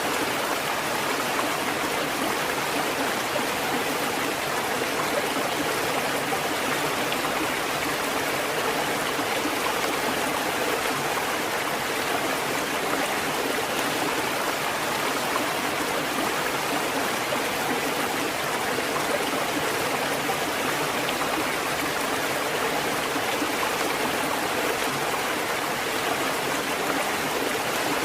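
Water fountain running: a steady, even rush of flowing water with no breaks or knocks.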